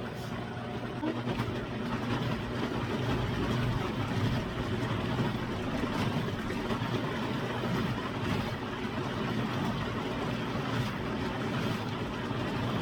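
Blender motor running steadily, puréeing toasted and boiled chili peppers with chicken stock into a creamy sauce.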